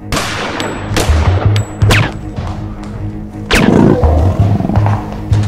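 Background music with a steady beat, overlaid by several sharp shot-like hits of Nerf blaster fire. The loudest is a heavier boom about three and a half seconds in.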